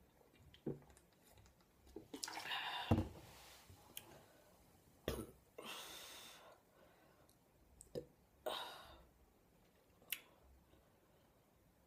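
Scattered small clicks and a louder knock about three seconds in, with a few breathy, hissing stretches from a person between burps.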